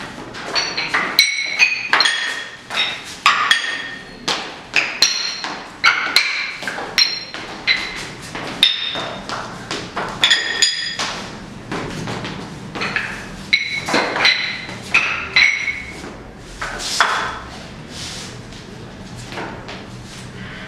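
Loose tuned floor tiles rocking and clinking under a dancer's boot steps. Each step sets off a short, ringing pitched tone. The strikes come quickly and irregularly, then thin out and soften near the end.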